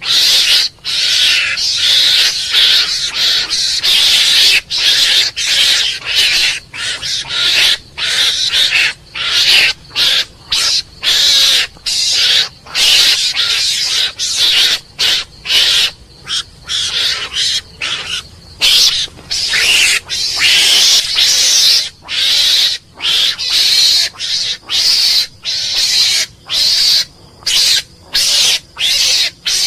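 Mongoose calls: hissing chatter in a quick run of bursts, each from a fraction of a second to about two seconds long, broken by short pauses. The calls are mostly high-pitched.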